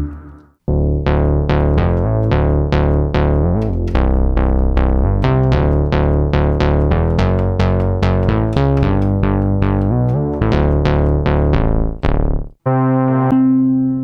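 Synth bass from the Forbidden Planet virtual instrument played on a keyboard: a repeating line of plucky notes with sharp attacks, about two or three a second. About twelve and a half seconds in it cuts off and a different, sustained bass patch starts.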